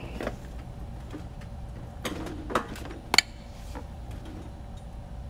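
Small drone parts being handled on a rubber workbench mat: a few light clicks and taps, the sharpest about three seconds in, over a faint steady hum.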